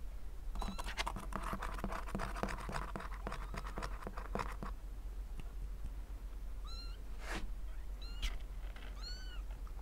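Three-week-old kittens scrabbling and scratching about on cloth and cardboard for the first few seconds. Then a few faint, high-pitched mews, with the odd click of a paw.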